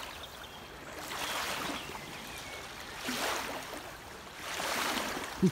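Small waves lapping at the shore of a loch, a splashing hiss that washes in and out about every second or two.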